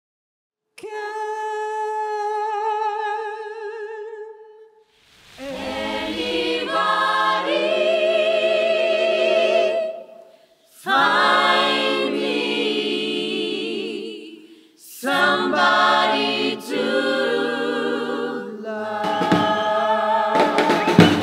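Choir singing a cappella: a single voice opens with a few long notes, then the full choir comes in about five seconds in with held chords, in phrases broken by short pauses. Sharp percussive hits start just before the end.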